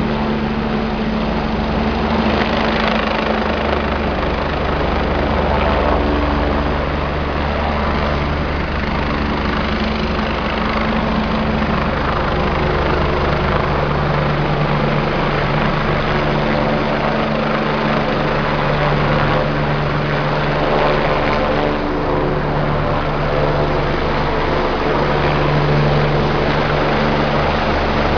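Rescue helicopter flying overhead: steady rotor and turbine noise, a dense continuous drone with a low hum underneath.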